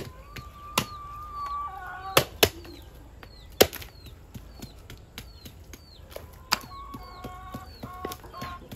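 Sharp chops of a blade striking pork and bone on a wooden block. There are about six loud strokes at irregular intervals, with lighter knocks in between.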